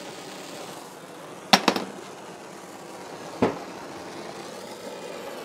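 Oxyacetylene torch flame hissing steadily as it heats a knife blade for silver soldering, with a quick cluster of sharp clicks about a second and a half in and one more click midway.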